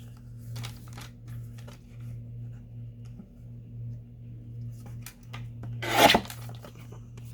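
Paper being handled at a craft table: soft rustles and small clicks, then one short, loud rip of paper about six seconds in. A steady low hum runs underneath.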